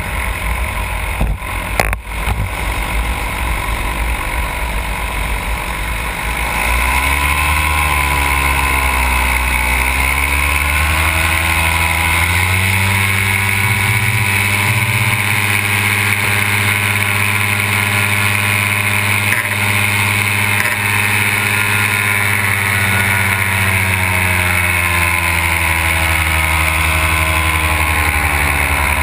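Powered paraglider's Simonini two-stroke engine and propeller running, with wind rushing over the microphone. About seven seconds in the engine note rises, dips briefly, then climbs again and holds steady, easing slightly near the end.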